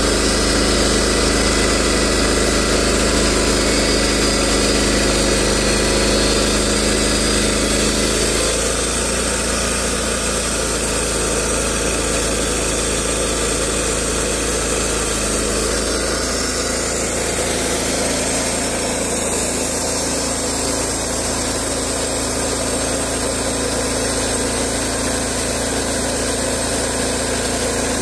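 Portable band sawmill running steadily: its engine and turning band blade. The sound changes abruptly about eight seconds in and again about halfway through as the sawhead travels along the log.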